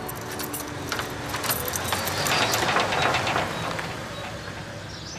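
Keys jangling and clicking in the lock of a glass shop door, with a car passing that swells to its loudest about halfway and then fades.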